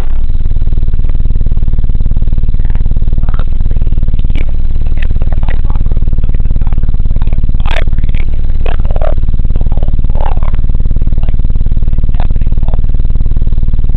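Deafening low, steady tone of wind buffeting through the open windows of a 2006 Suzuki Grand Vitara at over 35 mph, setting the whole cabin resonating. It is loud enough to max out the recording. The owner takes it for a defect that should be a recall.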